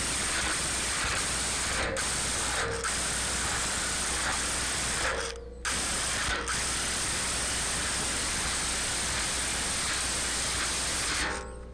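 Hammer drill boring an anchor hole into concrete, a steady rattling drone with a faint high whine. It stops briefly a few times and shuts off near the end.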